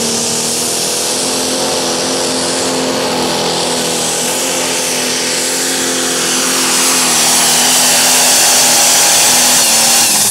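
Pro stock pulling tractor's turbocharged diesel engine, in a John Deere 5010, running flat out under load as it drags the sled, with a thin high whine over the steady engine note. It gets louder about two-thirds of the way through and falls away right at the end.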